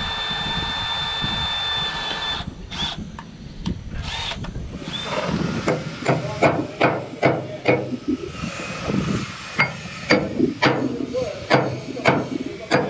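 A power tool whines steadily for the first couple of seconds and then stops. From about six seconds in, a hammer strikes a metal outboard propeller blade repeatedly, about two or three blows a second, to take pitch out of the blade.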